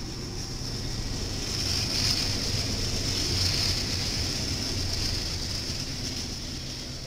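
BNSF freight train passing close by: the diesel locomotives' engines rumbling past, then loaded coal hopper cars rolling by with a steady high hiss of wheels on rail. Loudest a few seconds in as the last locomotive goes by, easing off as the hoppers follow.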